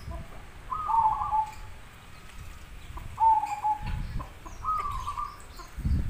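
Caged zebra dove (perkutut) cooing: three short, clear pitched phrases a couple of seconds apart, with low rumbling noise between them.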